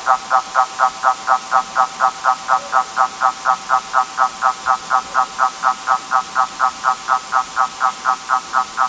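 Electronic dance music thinned down to a repeating synth note pulsing evenly about four times a second, with the bass filtered out and the level slowly falling.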